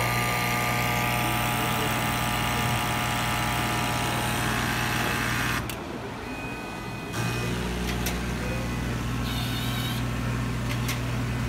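Duplo 616 slitter/cutter/creaser running a sheet of greeting cards through: a steady, loud motor hum and whir for the first half. It then drops to a quieter hum, broken by a few sharp clicks as the cut cards are passed out.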